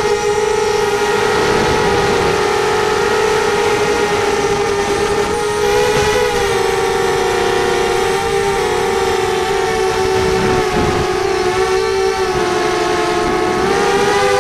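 Racing quadcopter's electric motors and propellers whining steadily. The pitch wavers a little up and down as the throttle changes, dipping a few seconds before the end and rising again.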